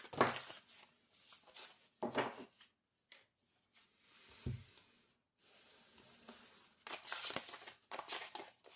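Tarot cards being handled on a tabletop: brief rustles and soft taps as single cards are slid and laid down, then a quicker run of rustling as the deck is shuffled near the end.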